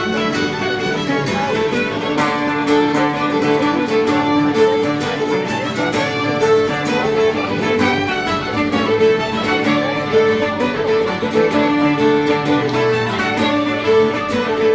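Fiddle playing the melody of a Scottish pipe jig over strummed guitar accompaniment, in a steady driving jig rhythm.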